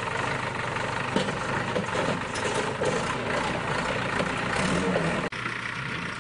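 JCB backhoe loader's diesel engine running steadily while its backhoe arm carries a heavy load, with a few short knocks. The sound dips briefly about five seconds in.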